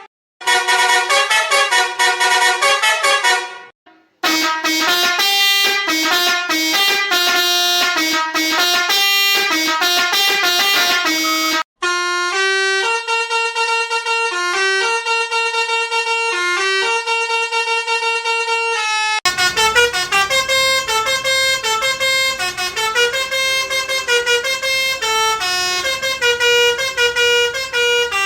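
Road Master RM-615 six-trumpet musical air horn playing several preset melodies one after another, with brief breaks about 4 and 12 seconds in and a new tune starting about 19 seconds in.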